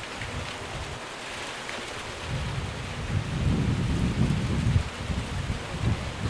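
Steady rain falling, with an irregular low rumble of wind on the microphone that grows louder from about two seconds in.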